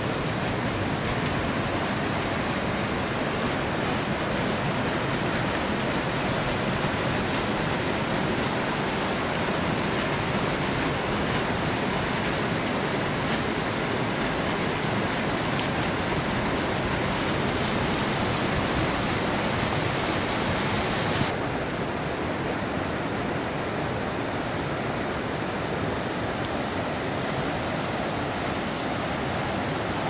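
Steady rush of a small waterfall splashing down a grassy, rocky bank into a shallow pool. About two-thirds of the way through, the sound cuts suddenly to a duller, less hissy rush of water.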